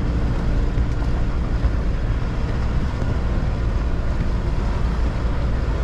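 Isuzu D-Max ute on the move: a steady low rumble of the diesel engine and tyres, with some wind noise.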